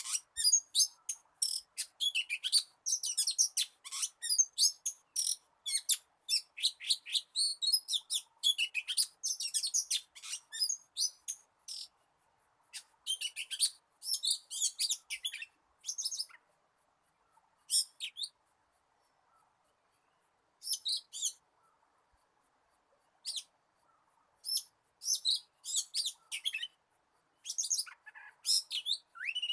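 Oriental magpie-robin singing a long run of quick, varied whistles and chirps. The song breaks off for several seconds in the middle, then starts again.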